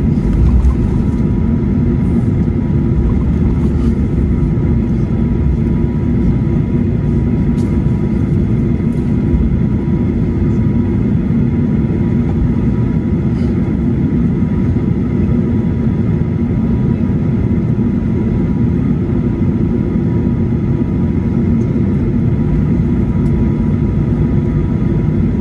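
Cabin noise of a Boeing 737-800 taxiing, its CFM56 jet engines running at idle: a steady low rumble with a faint steady whine above it.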